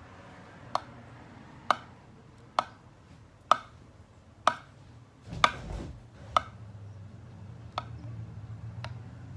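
A thin stirring utensil clicking against the rim of a glass baking dish while it stirs and lifts thick glue slime, about one sharp click a second in a steady rhythm, with a duller thump about halfway through.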